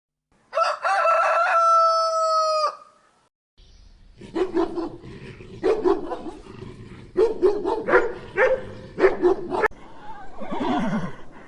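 A rooster crows once, a long call of about two seconds. After a brief silence a different recording follows, with a run of short repeated animal calls over a steady background noise, and near the end a call that falls in pitch.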